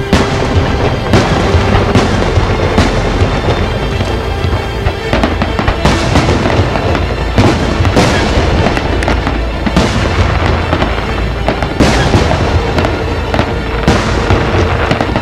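Aerial firework shells bursting in a continuous barrage: repeated sharp booms every second or two over dense crackling.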